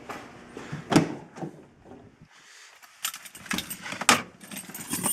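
A sharp knock about a second in, then from about three seconds in a run of quick metallic clicks and jingling, like a bunch of car keys jangling.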